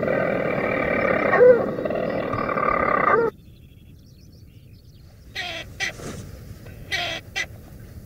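European storm petrel's purring song played from a speaker: a loud, continuous churr broken by a short hiccup note about every two seconds, cutting off suddenly a little over three seconds in. Fainter short calls follow, a storm petrel answering the playback from its nest inside the stone wall.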